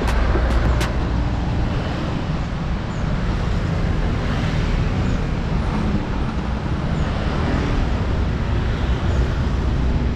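Large tour coach's diesel engine running as it rolls slowly forward, a steady low rumble.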